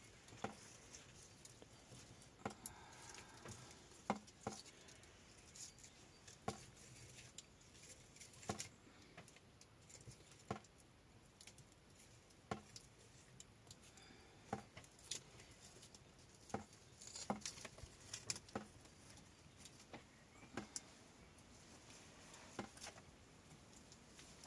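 Near silence with faint, sharp clicks and ticks, the strongest coming about every two seconds.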